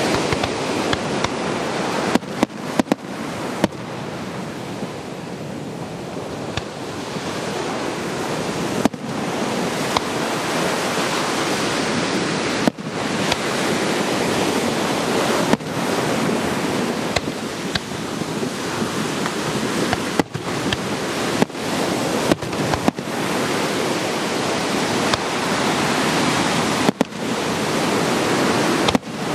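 Aerial fireworks shells bursting with sharp bangs at irregular intervals, about a dozen in all, over a steady rushing of ocean surf and wind. The overall level dips briefly after each bang.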